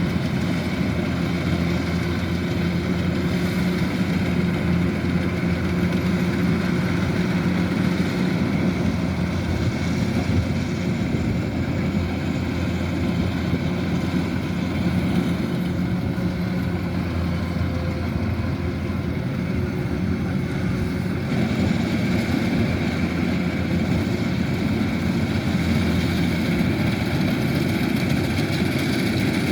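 Kubota DC-105X combine harvester running steadily with an even engine drone; its tone shifts slightly about two-thirds of the way through.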